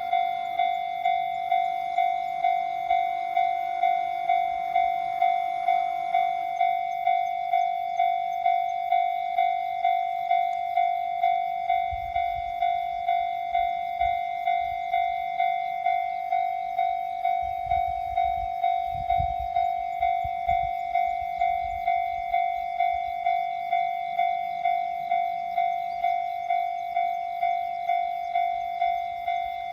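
Japanese level-crossing electronic warning bell ringing, a steady pulsing tone repeating at a little under two strikes a second. A fainter higher layer of the alarm stops about six seconds in, and brief low rumbles come partway through.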